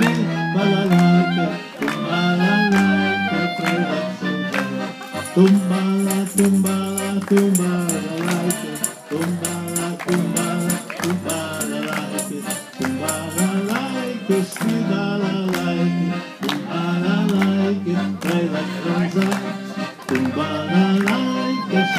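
Music with singing and a wavering melody line; a high shimmering sound joins from about five seconds in and stops near the middle.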